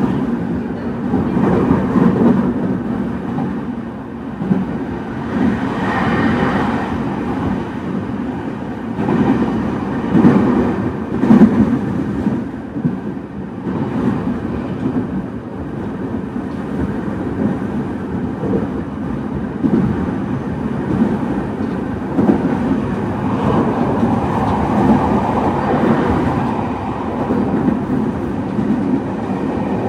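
JR East 209 series electric train running, heard from inside the car: a steady rumble of its motors and wheels on the track, swelling a little about six seconds in and again near the end.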